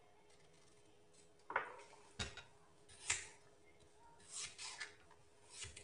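A knife peeling and cutting a firm green mango: after a quiet start, about five sharp clicks and scraping knife strokes over the last four seconds.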